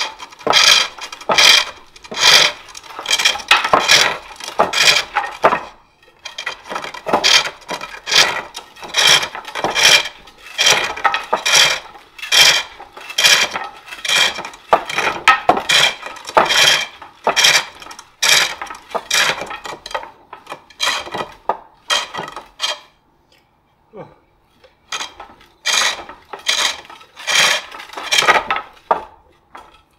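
Turning tool cutting a wooden bowl blank on a foot-powered pole lathe: bursts of cutting noise, about two to three a second, as the blank spins back and forth with the treadle. The cutting pauses briefly about six seconds in and again for a couple of seconds near the end.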